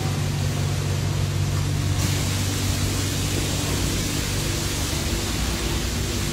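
Steady hiss over a constant low hum; the hiss turns brighter about two seconds in.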